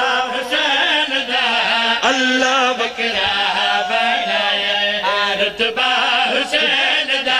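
A man chanting a qasida, a devotional poem, in a melodic recited style through a microphone and loudspeakers, with long held notes that bend and waver in pitch.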